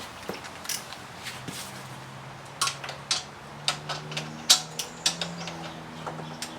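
Scattered light clicks and knocks of hand tools and motorcycle fairing parts being handled during work on the bike. A low steady hum sets in about two seconds in.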